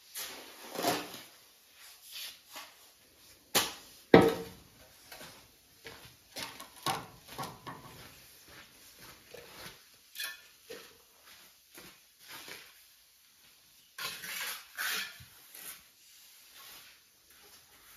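Hand tools working plain cement-and-water grout into a tiled floor: irregular scrapes and knocks, the loudest a sharp knock about four seconds in.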